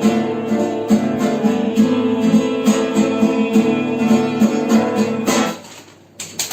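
Guitar accompaniment playing the closing bars of a song with a repeating picked pattern, stopping about five and a half seconds in. Audience applause starts right at the end.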